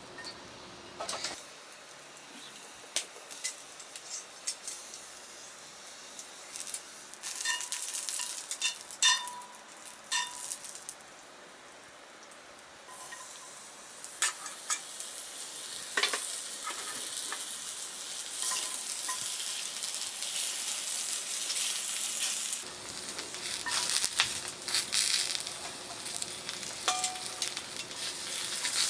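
Food sizzling and frying in a hot iron frying pan, with a few sharp metallic clinks of a utensil against the pan. The sizzle swells and grows louder in the second half.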